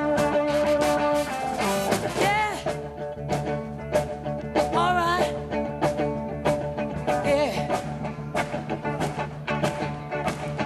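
Soul-rock band playing an up-tempo number: drums on a quick steady beat under electric guitar and bass, with a few short sung phrases over it.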